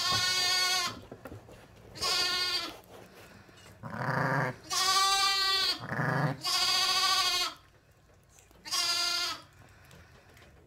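Sheep bleating: a series of about seven quavering bleats, each under a second long, two of them deeper and lower-pitched around the middle.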